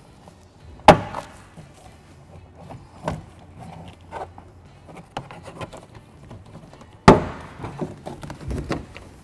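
Door panel retaining clips on a 2004 Subaru Impreza WRX popping out of the door as a plastic trim tool pries the panel away: two loud, sharp pops, about a second in and near the end, with lighter plastic clicks between them.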